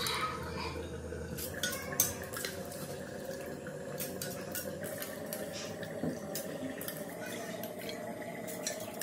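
Stainless steel bowl clinking and scraping against the rim of a pressure cooker while hands work mashed food in it: a run of light metal taps and clicks, the sharpest about two seconds in.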